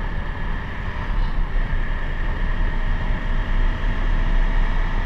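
Motorcycle engine running with a steady low rumble, likely mixed with wind noise on the helmet or handlebar microphone.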